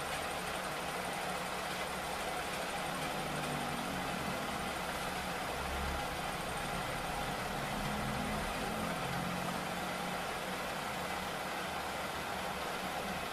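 Metal lathe running steadily with a motorcycle cylinder head spinning in its chuck, a constant machine hum.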